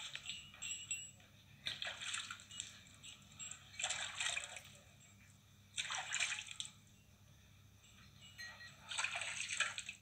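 Milk squirting from a cow's teats into a steel bucket during hand milking: four hissing bursts of rapid squirts, each about a second long, roughly every two seconds.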